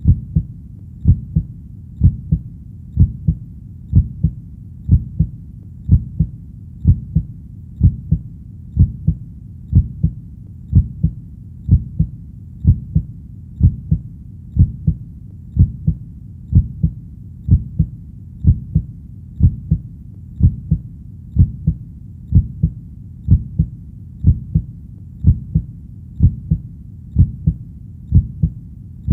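Heartbeat in a steady lub-dub rhythm of about one beat a second, each beat a low thump followed closely by a softer second one.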